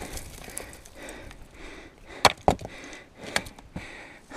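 Knocks and scrapes of a climber's hands, boots and gear on rock while scrambling up boulders: a few sharp knocks, the loudest two close together a little over two seconds in and another about a second later.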